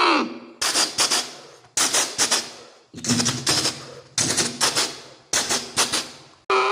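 Imitated train sound: a steady horn tone drops in pitch and stops, then a rhythmic clickety-clack of wheels over rail joints follows, in groups of two or three sharp clicks about once a second. The horn tone comes back near the end.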